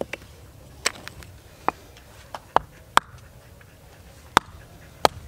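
A hatchet chopping small sticks of firewood into kindling: a series of sharp, separate chops, about eight strikes at an uneven pace.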